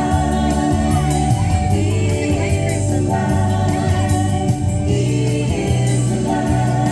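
Upbeat Christian children's song with singing voices and a steady beat, laid over the video as background music.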